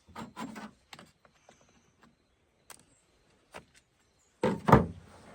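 Handling noises from a chainsaw being worked on: a few scattered clicks and rustles, then a loud knock about four and a half seconds in.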